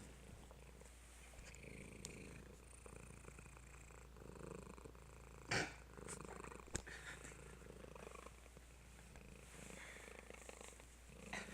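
A fat domestic cat purring steadily. A sharp click cuts in about five and a half seconds in, and a smaller one follows about a second later.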